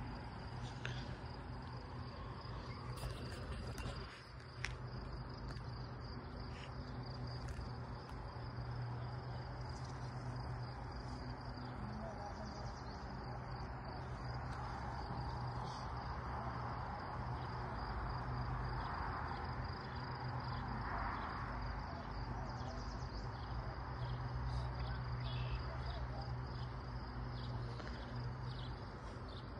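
Crickets chirping steadily in a high, evenly pulsing trill over a low steady hum.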